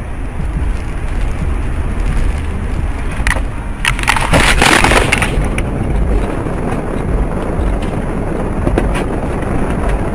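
Steady road and engine rumble of a moving car, broken about four seconds in by a car crash: a loud crunch of impact lasting over a second.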